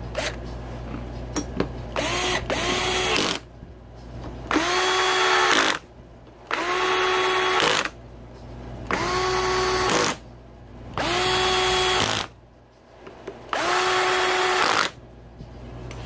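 Cordless drill-driver running in seven short bursts, each spinning up quickly and then holding a steady whine for about a second, as it drives in the Loctited mounting bolts of a fuel pump.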